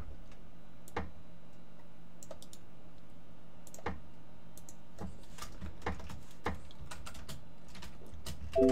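Computer keyboard keystrokes, a few separate taps spread out roughly a second apart, over a steady low hum. A short tone with several pitches comes in just before the end.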